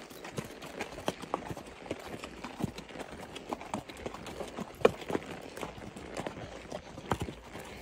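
Horse's hooves clip-clopping on a dry, sandy dirt road: a run of short knocks, a few a second, with one sharper knock about five seconds in.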